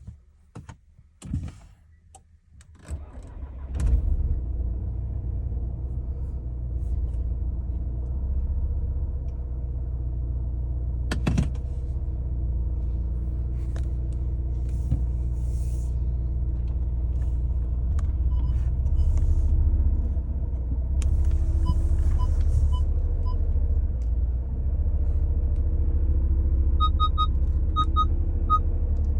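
Volkswagen Passat engine starting about three seconds in after a few faint clicks, then running steadily at idle with a low hum. A few short electronic chimes sound about two-thirds of the way through and again near the end.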